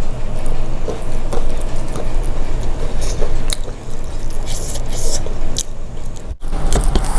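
Close-miked chewing of soft food, with wet mouth smacks and small clicks, over a steady low rumble; the sound cuts out for an instant about six seconds in.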